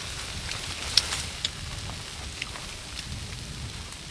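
Steady hiss with scattered sharp crackles and pops, the loudest about a second in.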